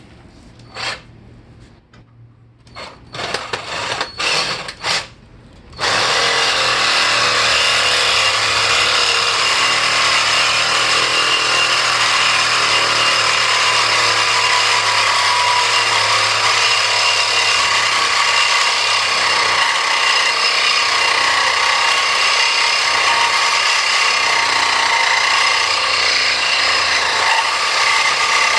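A few knocks and clicks, then about six seconds in a power tool starts up and cuts steadily through metal without a break, a harsh noise with a ringing whine in it. It is cutting off the brake bracket on a G-body rear axle for a rear disc brake conversion.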